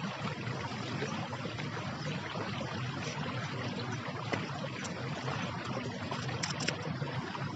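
Steady rushing outdoor background noise, with a few brief faint high ticks about six and a half seconds in.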